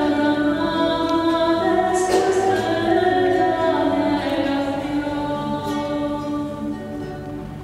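A choir singing slowly in long held notes. The singing fades away near the end.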